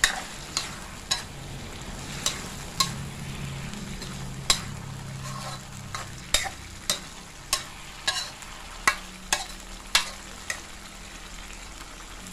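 Metal ladle scraping and knocking against a wok while stirring a thick minced-pork and tomato sauce, over a steady frying sizzle. A dozen or so sharp clinks come at irregular intervals.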